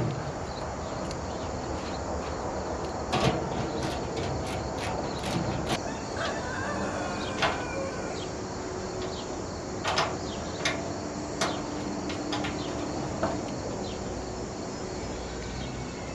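Scattered light clicks and knocks of galvanized sheet-metal nest box parts being handled and fitted together, over a steady background hiss.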